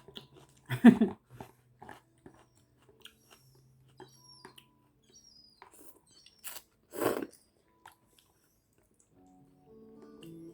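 Chewing and mouth noises of someone eating chicken with noodles, with short scattered clicks and two louder bursts, about a second in and about seven seconds in. Soft background music comes in near the end.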